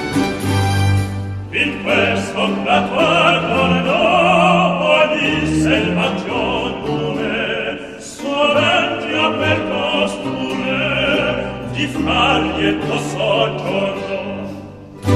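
Operatic singing with a strong vibrato over classical orchestral accompaniment.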